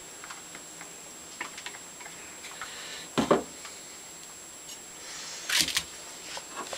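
Light clicks and taps from handling the metal Stanley No. 113 compass plane, with a sharp knock about three seconds in and a louder clatter a little after five seconds as the plane is set down on sandpaper over a stone slab.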